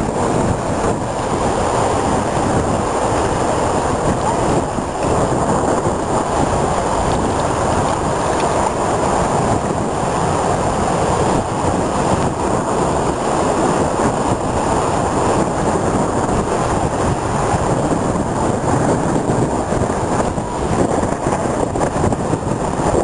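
Heavy surf from a rough sea: waves breaking and foam washing up the shore in a steady, continuous rush, with wind buffeting the microphone.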